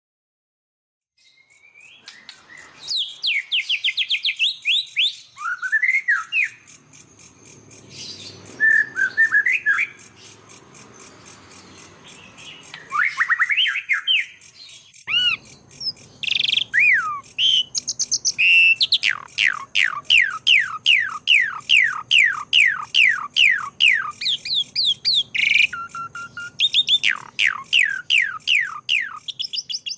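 Birds calling: runs of sharp, quickly repeated downward-sliding whistled notes, in phrases broken by short pauses, with scattered chirps and rising whistles between them.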